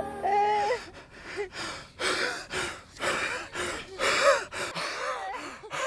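A man gasping for breath again and again, short strained gasps broken by brief groaning cries, a sound of sudden pain and distress.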